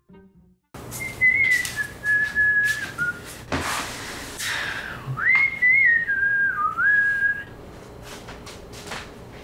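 A woman whistling a short tune in two phrases of a couple of seconds each, with clothes rustling as she handles laundry in a plastic basket.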